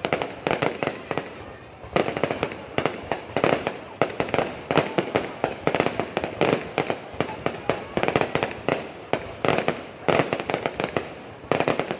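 Fireworks display going off: a dense run of sharp bangs and crackles, several a second, with brief lulls about two seconds in and near the end.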